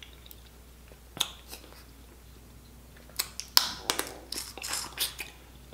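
Snow crab leg shell bitten and cracked open with the teeth: a single crack about a second in, then a run of sharp cracks and crunches in the second half.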